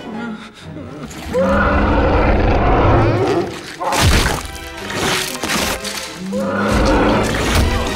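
Dramatic film-score music with swelling passages, broken by a loud crash with shattering about four seconds in, as of plaster breaking apart.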